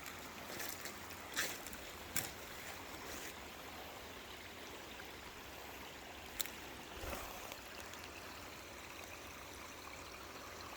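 Faint, steady trickle of running water, with a few short sharp clicks.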